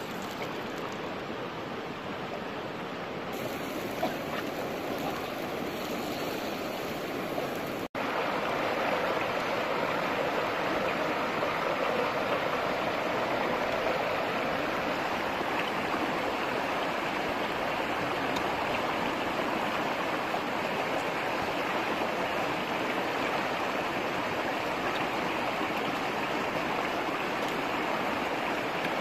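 Steady rushing of a stream. About eight seconds in it drops out for an instant, then comes back louder.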